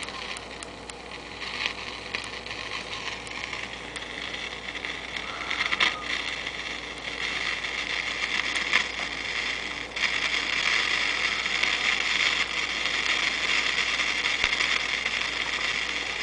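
Static hiss with scattered crackles from a Silvertone tube radio's speaker as it is tuned with no clear station coming in; the hiss gets louder about ten seconds in. The weak reception is a sign that the set, freshly recapped, still has a fault, which the owner thinks might be another bad tube.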